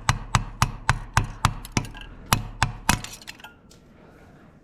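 Rapid hammer blows on a long screwdriver driven against a cylinder sleeve in a Ford 8N tractor engine block, to crack and loosen the sleeve: about ten sharp metallic strikes at roughly four a second, with a short pause near two seconds, stopping about three seconds in, followed by a few faint clinks.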